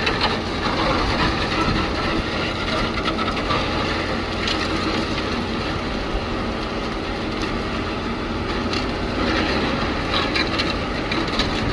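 Concrete-pumping machinery running steadily during pedestal casting: a continuous, even mechanical rumble with a steady hum.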